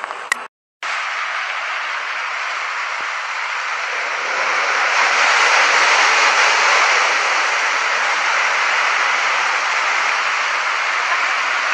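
Water rushing and splashing as a splash-pool play structure's tipping bucket dumps onto the pool. The rush swells about four seconds in, peaks, then eases to a steadier spray.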